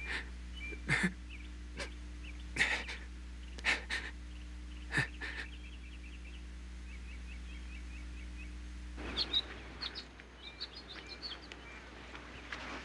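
A few sharp knocks and thumps over a steady low hum, with faint bird chirps behind them. About nine seconds in it changes to outdoor birdsong with quick, light footsteps running over dry ground.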